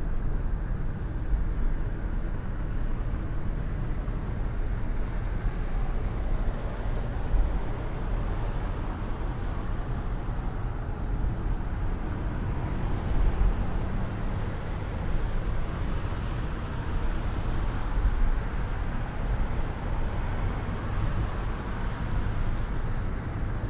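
Steady low road rumble of a car driving on snow-covered streets, heard from inside the car: engine and tyre noise with light traffic around it.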